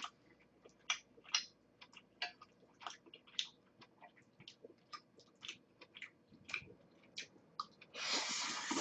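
Close-up chewing of basil chicken pasta: soft, wet mouth clicks a few times a second. Near the end comes a noisy slurp of pasta noodles lasting about a second.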